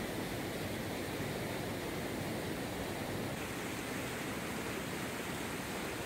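Steady rushing noise of a swollen, muddy river in flood pouring over rocks and a low concrete weir spillway.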